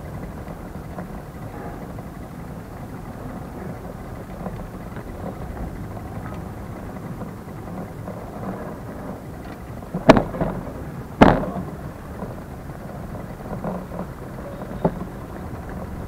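Two loud, sharp knocks a little over a second apart, about two-thirds of the way through, over a steady low rumble, with a few fainter clicks near the end.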